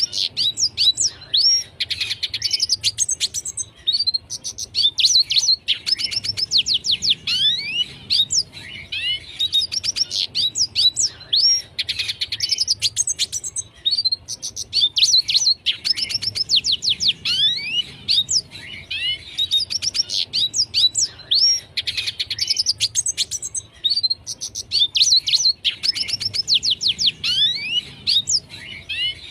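Red siskin singing continuously: rapid twittering phrases of quick high sweeping notes, each phrase lasting a second or two with short breaks between them.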